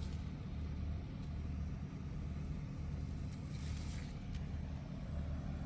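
Steady low mechanical hum of a motor or engine running, with a brief rustle about three and a half seconds in.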